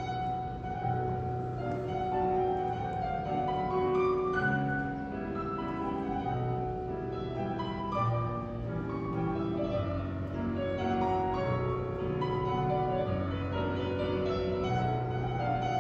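Classical piano music, ballet class accompaniment, with a melody of held notes over a bass line.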